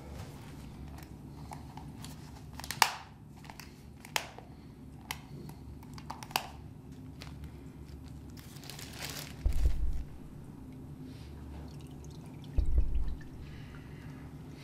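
Film sound design of a head held down in a filthy toilet: wet squelching and crunching with a few sharp clicks over a steady low hum, and two short, deep, loud thuds in the second half.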